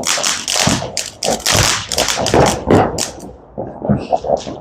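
Fireworks going off in a rapid, irregular string of pops and bangs, thinning out about three seconds in.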